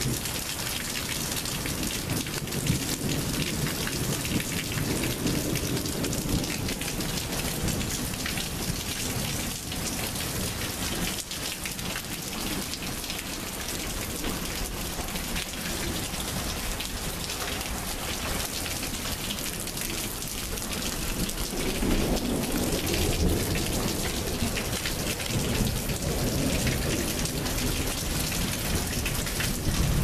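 Heavy rain falling steadily, with two long rolls of thunder: one a few seconds in and a louder one in the last third.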